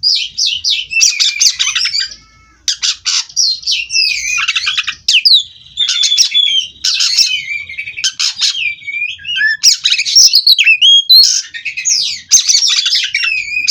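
Oriental magpie-robin (kacer) singing a long, rolling, unbroken song: a fast run of varied whistles, trills and harsh chattering notes, with only a brief pause about two seconds in.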